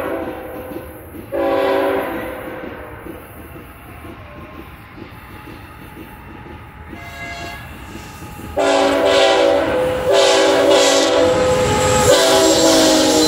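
Air horn of a BNSF ET44C4 diesel locomotive leading a freight train, sounding a chord of several notes in separate blasts: a short one early, then three longer blasts close together from about two-thirds of the way through. Near the end the locomotive passes close, and the rumble of the engine and wheels on the rails rises under the horn.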